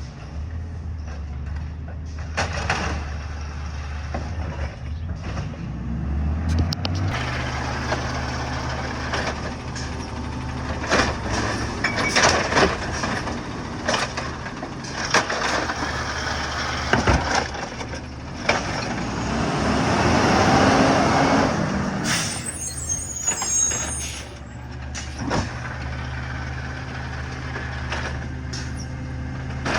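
Diesel garbage truck working: the engine runs steadily and steps up in pitch about a quarter of the way in, over repeated knocks and clatter. A loud swell of noise builds in the second half, followed by a short burst of air hiss.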